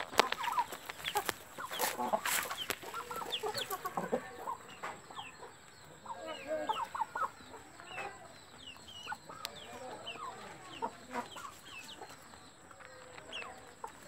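Aseel chickens clucking while they feed, with many short high calls scattered throughout. A few sharp clicks come in the first few seconds.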